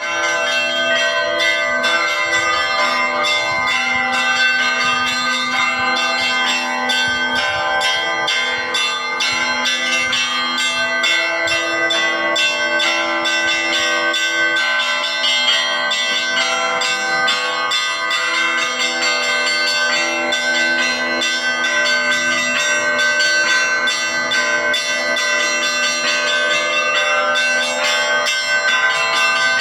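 Russian Orthodox church bells rung for a feast day: many bells of different pitches struck in quick, continuous succession, with small bells chiming rapidly over deeper, longer-ringing tones.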